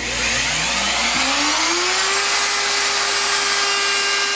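Ridgid plunge router fitted with a template bit starting up: its motor whine rises in pitch for about two seconds as it spins up, then holds steady at full speed without cutting.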